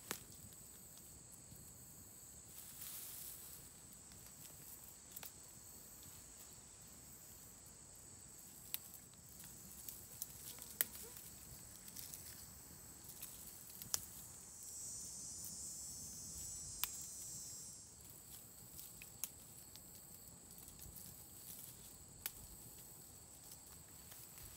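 Scattered sharp snaps and crackles of dry wheat ears being broken off the stalks and crushed in the hands to free the grain, over a steady high-pitched insect drone. A second, higher buzzing call joins for about three seconds in the middle.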